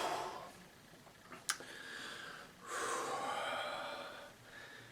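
A man breathing out heavily after a swig of malt liquor: two long breathy exhales, the second louder, with a single sharp click just before the first.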